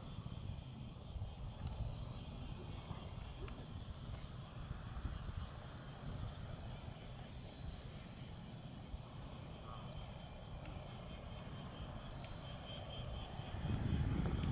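Steady high-pitched insect chorus over a low, even rumble. About a second before the end, a louder low roar rises from the landing Boeing 737-800's CFM56 jet engines.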